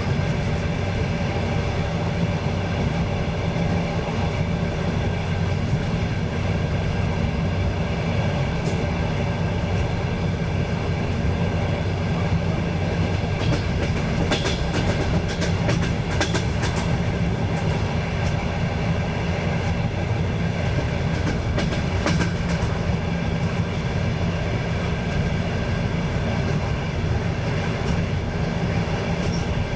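Train running along the track, heard from aboard: a steady rumble and hum, with wheels clicking over rail joints now and then.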